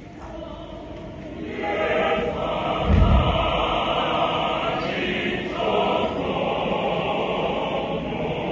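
Large choir singing a traditional choral item; the voices are soft at first and swell loudly about a second and a half in. A heavy thump sounds about three seconds in.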